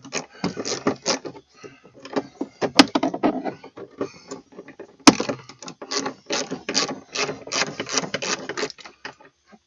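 Hand tools and plastic door trim clicking and rattling while a T30 Torx screw is driven back into a car door panel. There is a quick run of small clicks throughout and two sharp knocks about three and five seconds in.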